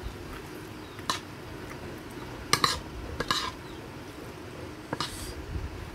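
Metal spoon scraping and clinking against a plate while scooping up rice: a few short scrapes and taps spread through, the busiest cluster about two and a half to three and a half seconds in.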